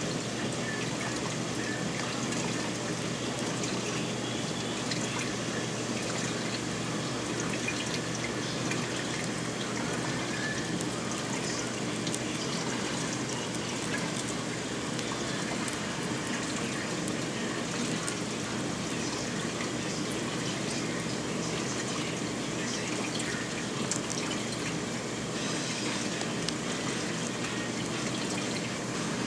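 Reef aquarium water circulating: a steady trickling wash of running water with scattered small drips and a faint low pump hum.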